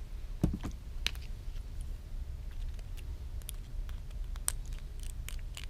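A few faint, scattered clicks and small taps as the display flex-cable connectors are unplugged from an iPhone 6s Plus, over a steady low hum.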